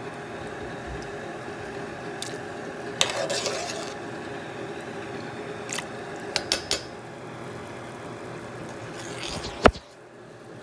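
Metal spoon clinking and scraping against a cooking pot while stirring kidney beans in their liquid: a short run of scraping about three seconds in, a few light clinks around six to seven seconds, and one sharp, loud knock near the end, over a steady background hum.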